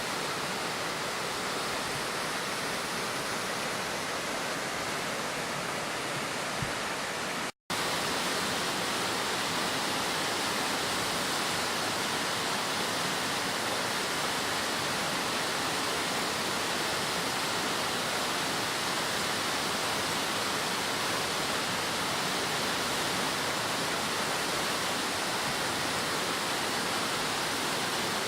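Waterfall with a large volume of water rushing steadily. The sound cuts out for a split second about a quarter of the way through, then resumes.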